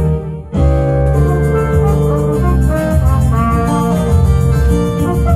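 Trumpet playing a slow melody in held notes over a backing track with an organ-like keyboard sound. The music drops out briefly just after the start, then comes back in.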